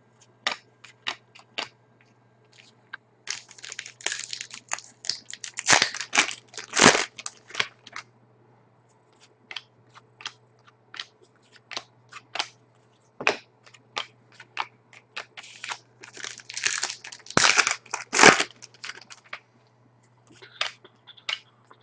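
Trading cards handled by hand and flicked through one after another: sharp card clicks throughout, with two longer rustling stretches about three seconds in and again about sixteen seconds in.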